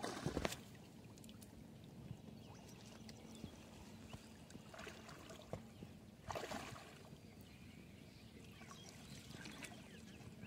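Water sloshing and splashing as a man wades waist-deep and works a hand-held ring net through a shallow pond. There are three brief splashes, at the start, near the middle and a little after, with faint sloshing between.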